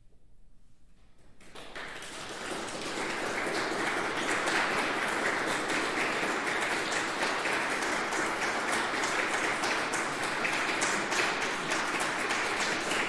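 Audience applause after the final note of a piece, starting about a second and a half in out of near quiet, swelling quickly, then holding at a steady level.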